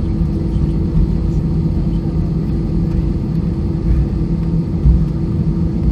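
Steady low cabin rumble with a constant engine hum, heard from inside an Airbus A320-214 after landing.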